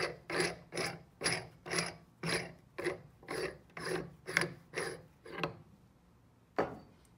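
Threaded stainless-steel lid of a critical point dryer's pressure chamber being unscrewed by hand, metal threads rasping in about a dozen strokes, roughly two a second. The strokes stop about five and a half seconds in, and a single knock follows about a second later.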